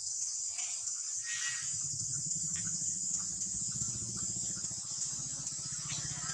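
Steady high-pitched insect chorus, an even hiss that never lets up, with a low hum beneath and a few faint clicks.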